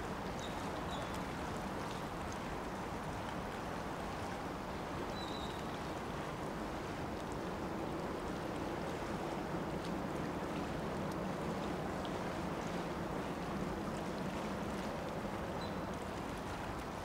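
Steady waterside ambience: an even wash of water and wind, with a few faint short high chirps now and then.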